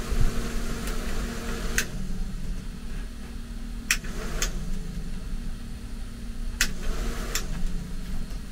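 Steady low machine hum with about five sharp clicks scattered through it.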